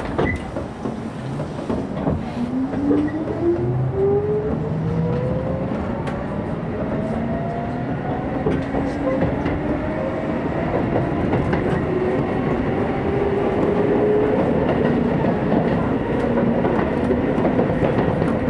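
Hokuso Railway 9000-series electric train accelerating away from a station. Its traction motors whine in several tones that rise steadily in pitch, over wheel rumble and clicking rail joints.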